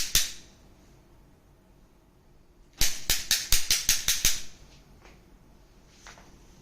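Joints cracking under a chiropractic spinal adjustment. A quick run of sharp pops comes right at the start, then about three seconds in a run of about ten more over a second and a half, with one faint pop near the end.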